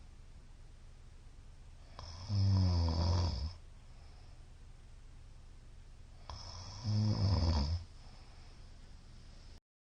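A middle-aged man snoring loudly in his sleep: two long, low buzzing snores, each about a second and a half, about four seconds apart.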